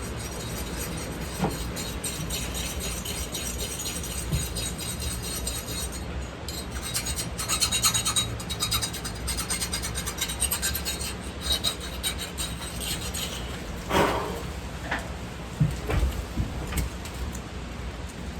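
Hand file rasping with quick repeated strokes, scraping paint off a part, with a few knocks near the end.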